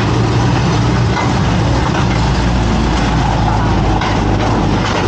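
A vehicle's engine running steadily, with a constant low hum under a continuous rushing noise.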